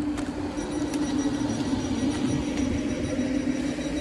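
A London Northwestern Railway Class 350 electric multiple unit standing at the platform with its doors open, giving a steady hum from its onboard equipment.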